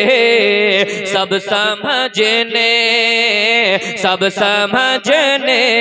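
A man's voice singing a naat unaccompanied into a microphone, drawing out long ornamented notes whose pitch wavers and turns, with a few brief breaks for breath.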